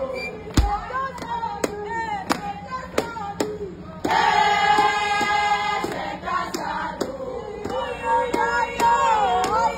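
A group of women singing together in a celebration song, with rhythmic hand clapping about three times a second; the singing grows fuller and louder about four seconds in.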